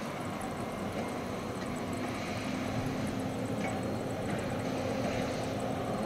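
Steady drone of a diesel engine running, with a low hum and a few faint light knocks.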